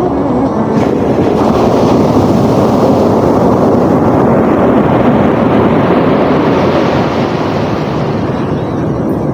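Sea waves: a steady wash of surf that slowly swells over several seconds and then ebbs away, with wind rumbling on the microphone.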